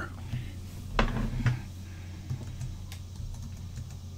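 Computer keyboard being typed on: a few separate key clicks, the two loudest about a second and a second and a half in, then lighter, sparser taps, over a steady low hum.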